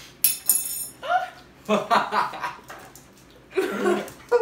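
Two people laughing in short bursts with pauses between them.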